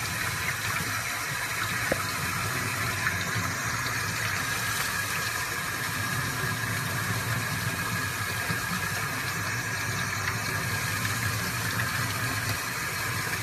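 Tap water running steadily from a sink faucet and splashing over a small puppy held under the stream.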